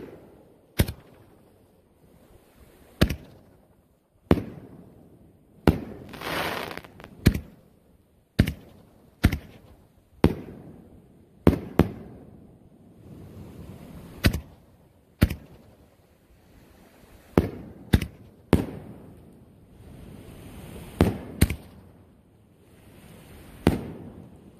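RealTree Fireworks Wildcat 5-inch canister aerial shells being fired one after another: a series of about twenty sharp bangs from tube launches and bursts overhead, sometimes in quick pairs. A hiss lasting about a second comes around six seconds in.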